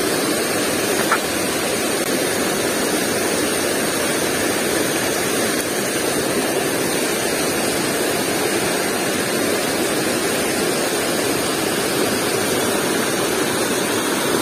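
Shallow river water rushing over rocks in a riffle: a steady, even rush.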